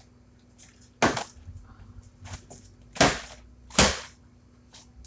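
Plastic milk jug flipped and landing on a concrete floor: a sharp knock about a second in, then two more close together around three and four seconds, with lighter taps between.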